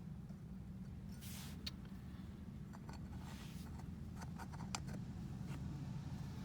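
Small clicks and brief rustling from hands fitting parts of a low-voltage landscape light fixture, over a steady low background rumble.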